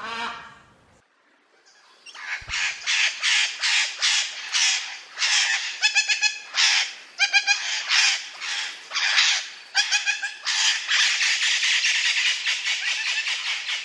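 Indian ringneck parrot giving a long run of harsh, squawking calls, about two or three a second. They start about two seconds in after a short pause and run together into an almost unbroken screech near the end.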